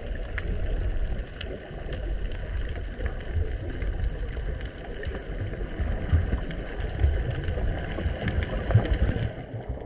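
Muffled underwater noise picked up by a camera held below the surface: a steady low rumble with faint scattered clicks and crackles.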